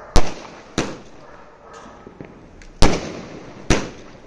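A multi-shot aerial firework cake (a 240-shot sky shot) firing, its shells bursting overhead as four sharp, loud bangs at uneven intervals, with a smaller pop between them.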